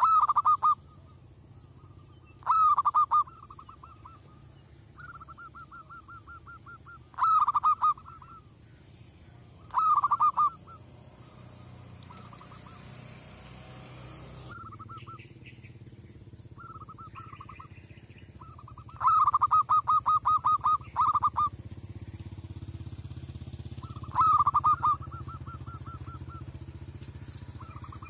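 Zebra dove cooing: repeated bursts of rapid staccato notes, each lasting about a second, several times over, with fainter runs of the same cooing in between.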